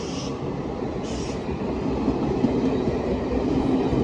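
Passenger train pulling out of a station platform: a steady low rumble of the coaches rolling, growing a little louder about halfway through, with a brief hiss about a second in.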